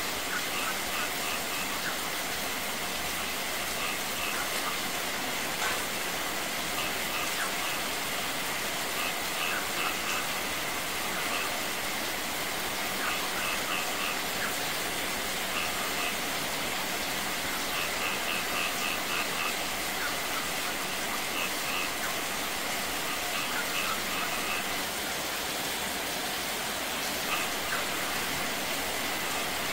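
Steady rain pouring onto a shallow garden pond and wet stone, mixed with the splash of runoff streaming down from a wall and a small cascade over rocks. Short high chirps come in quick runs now and then.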